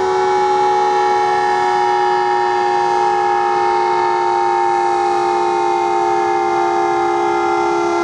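Broadmoor Hospital's electro-mechanical warning siren (Siren A) sounding during a siren test. It holds a steady two-note chord that sags very slightly in pitch.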